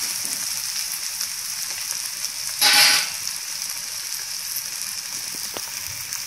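Chopped onions and ginger-garlic paste sizzling in hot oil in a kadhai, a steady hiss as they are sautéed towards browning, with a brief louder burst of noise about three seconds in.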